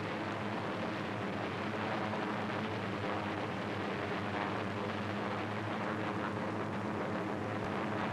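Steady drone of propeller aircraft engines with a hiss over it, unchanging throughout.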